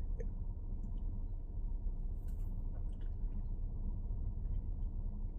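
Steady low background rumble with a few faint, short clicks scattered through it.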